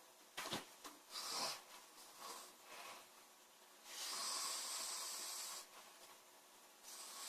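A sleeping woman's noisy snoring breaths: a short sharp snort about half a second in, a few shorter breaths, then a longer hissing breath from about four seconds in that lasts a second and a half.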